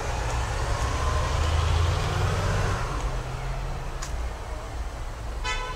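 Street traffic: a motor vehicle passes close by, its engine rumble swelling and fading about two seconds in, over general city noise. A sharp click about four seconds in, and a brief high-pitched call near the end.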